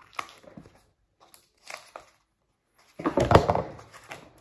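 Paper card mailer and its plastic-wrapped bundle of cards being cut and opened by hand. A few small snips and rustles come first, then a louder crinkling tear about three seconds in as the wrapping is pulled open.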